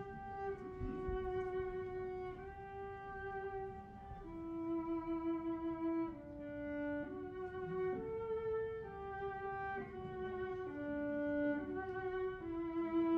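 Solo violin playing a slow melody, one long held note after another, each lasting a second or two.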